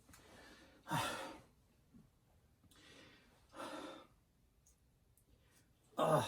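A man's sighing breaths: three heavy exhales, about a second in, near four seconds and near the end.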